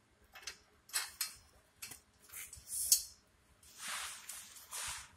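Hand work on a nut and bolt in a steel sign bracket: a few light metal clicks, then three short scraping rustles.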